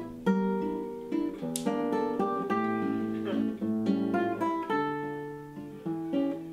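Nylon-string classical guitar playing a run of plucked notes and chords.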